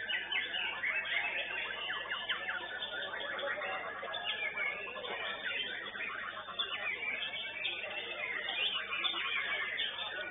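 Many white-rumped shamas (murai batu) singing at once in contest cages: a dense, unbroken tangle of overlapping whistles, trills and chirps.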